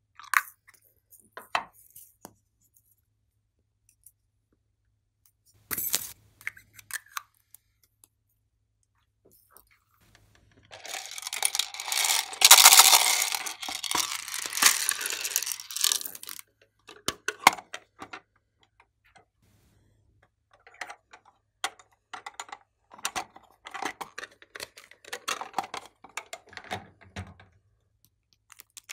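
Hands handling small plastic containers and packaging: scattered clicks and taps, then a loud stretch of dense rattling and rustling lasting several seconds in the middle as a red plastic toy container is opened. Near the end comes a run of small crinkling sounds as a plastic-wrapped block of green clay is handled.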